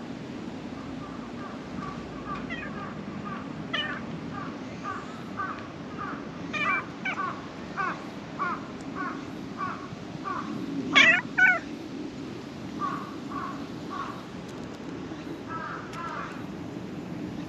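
A cat meowing up close, and crows cawing in a long run of short calls repeated about twice a second. The loudest sound is a pair of calls about eleven seconds in.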